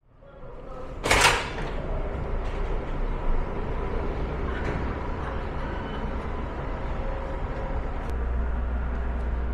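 Steady outdoor background noise on a waterfront pier, fading in. About a second in, a short, loud hiss is heard. From about eight seconds in, a heavier low rumble sets in.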